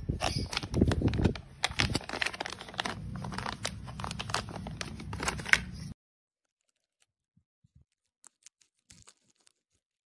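A courier package's wrapping being handled and torn open, with crinkling, tearing and sharp crackles, cut off abruptly about six seconds in; then near silence with a few faint ticks.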